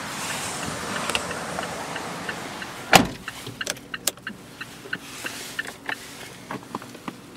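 A Mazda 3's car door shutting with one loud thud about three seconds in, heard from inside the cabin, with rustling noise before it. Afterwards come a few light clicks from the cabin controls over a faint steady low hum.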